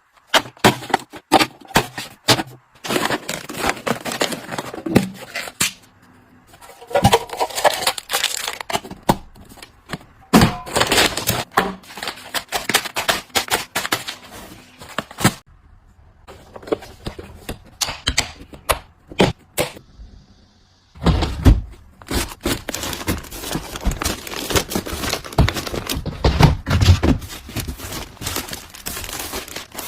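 Close-up handling of household items and packaging: a quick run of clicks, taps and knocks with crinkling plastic, broken by a few short pauses, and heavier thuds in the last third.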